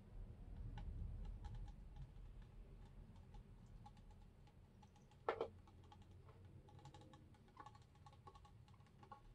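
Faint scattered ticks and light crackling as a hot wood-burner tip is drawn through poly burlap mesh, melting and fusing two layers into a sealed edge. One louder click comes about five seconds in.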